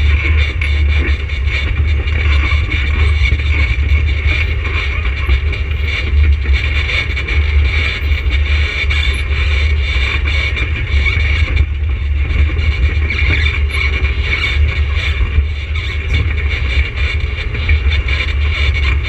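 An ATV engine running steadily, as heard while riding, with a constant low hum and no pauses or speech.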